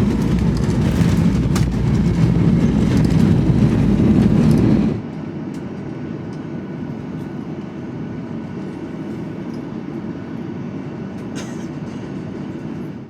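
Jet airliner cabin noise: a loud steady rumble for about five seconds, then an abrupt drop to a quieter, duller steady hum. A short click comes near the end.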